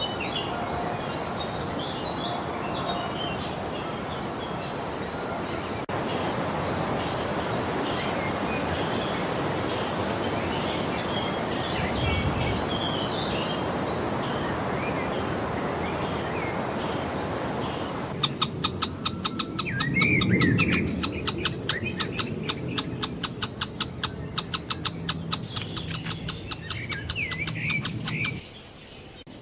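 Several small birds chirping and calling over a steady background hiss. About two thirds of the way in the sound changes abruptly to a fast, even clicking, about four or five clicks a second, with bird calls continuing over it.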